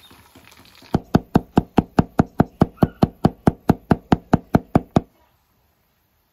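A kitchen knife mincing garlic on a wooden cutting board: rapid, even chops, about five a second, starting about a second in and lasting about four seconds.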